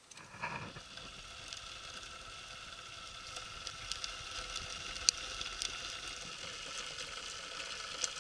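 Small twig fire burning in a Kelly Kettle's fire base and chimney: a steady rushing draught with scattered crackles and one sharp pop about five seconds in. A short clunk near the start as the refilled kettle is set back onto the base.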